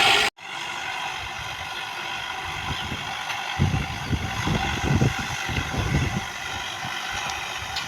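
A steady motor hum, with irregular low rumbling thumps for a few seconds from about three and a half seconds in.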